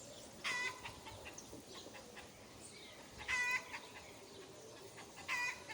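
A bird calls three times, about two and a half seconds apart, each a short call with a slight rise in pitch, over faint wind noise.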